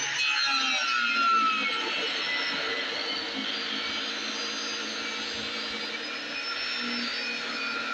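Table saw with a DeWalt dado blade set running steadily, cutting a half-inch groove in a board, with a high whine that wavers in pitch.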